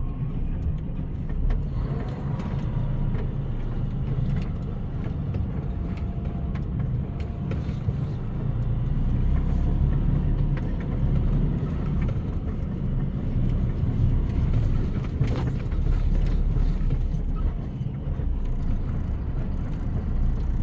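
Heavy diesel machinery running steadily with a low rumble, with a few sharp knocks over it.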